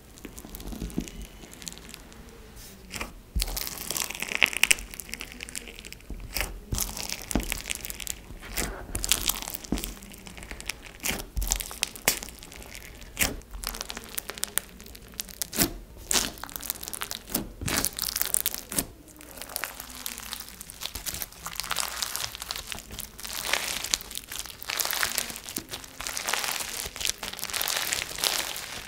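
Bead-filled slushee slime being poked, pressed and stretched by hand, giving irregular crackling with many sharp pops, sparse in the first few seconds and then dense.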